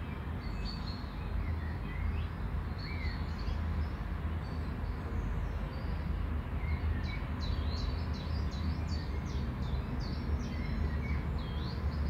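Small birds chirping in the background over a steady low hum, with a quick run of chirps about seven to ten seconds in.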